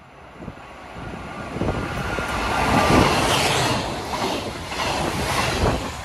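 DSB IC4 (Litra MG) diesel multiple unit running through the station, its rumble swelling to a peak about three seconds in and easing near the end, with wheels clattering over rail joints.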